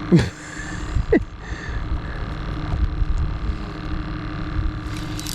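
Steady hum of a boat's motor over a low rumble, with two short sliding sounds about a second apart near the start.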